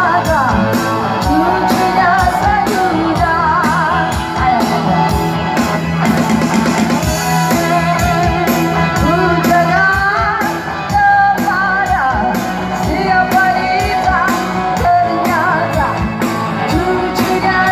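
Live band playing a rock song: a singer's voice over electric guitar and a drum kit keeping a steady beat.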